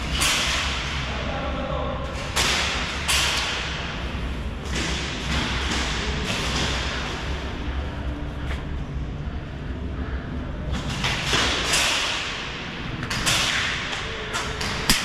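Irregular thuds and rustling bursts over a steady low rumble, the handling and movement noise of a body-worn camera on a player moving through an airsoft game.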